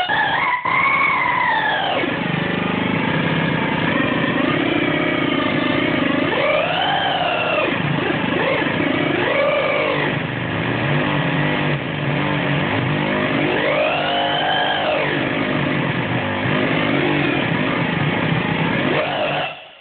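Homemade Sonodrome POSC oscillator synth sounding a continuous buzzy, noisy tone whose pitch swoops up and down in arcs as the hand moves over it, played like a theremin. The sound fades out just before the end.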